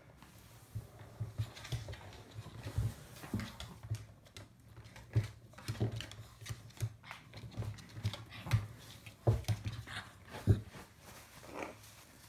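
A shih tzu playing against a person's hand on a wooden floor: irregular thumps, knocks and paw clicks as it jumps, scrabbles and lands, with hand movements against the floor.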